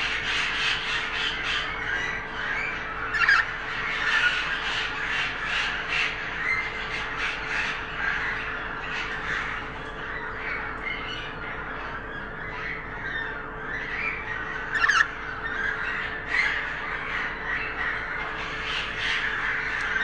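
Budgerigars chattering and squawking without a break, with two louder, sharper squawks about three seconds in and again later, over a steady low hum.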